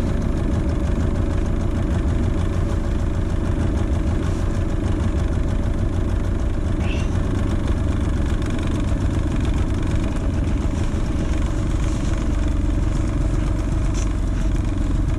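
Hangkai 6 hp two-stroke outboard motor running steadily while being broken in.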